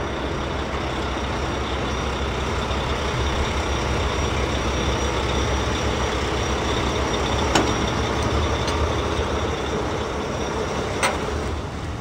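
A truck engine running steadily, a low rumble under an even hiss, with two faint clicks about seven and a half and eleven seconds in.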